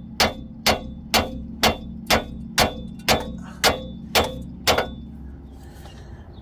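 Hand hammer striking steel about twice a second, each blow ringing briefly, about ten blows that stop about five seconds in: knocking on the steering linkage to free the tapered tie rod end stud, which is not coming out easily.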